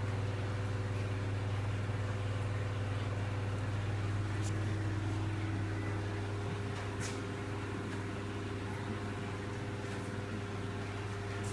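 Aquarium equipment humming steadily at a low pitch, with a couple of faint ticks in the middle.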